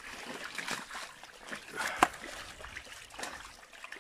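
Carp flapping in shallow water on a net, giving irregular wet splashes and slaps, the sharpest about two seconds in, over a faint trickle of water.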